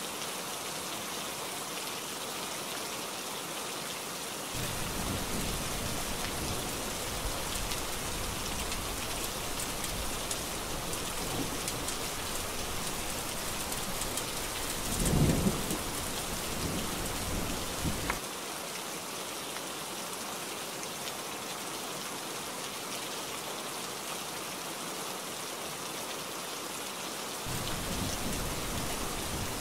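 Heavy rain falling steadily, with thunder: a long low rumble comes in about four seconds in, peaks in a loud clap near the middle and cuts off suddenly a few seconds later, and another rumble starts near the end.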